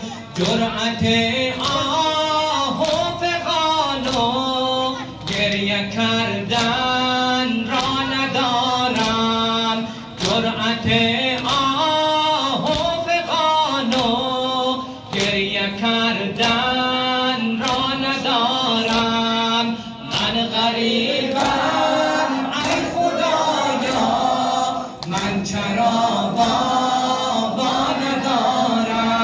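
Male voices singing a noha, a Shia mourning lament, as a chant, with a steady beat of sharp slaps from mourners beating their chests (matam).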